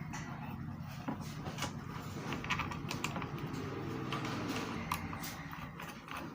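Light, irregular clicks and taps of plastic parts being handled as the cover is fitted onto an electric immersion water heater, over a faint low hum.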